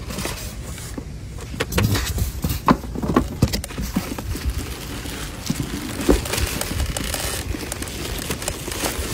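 Packaging being handled: plastic wrap, foam insert and cardboard box rustling and scraping as an air purifier is worked up out of its box, with scattered light knocks and crackles over a steady low rumble.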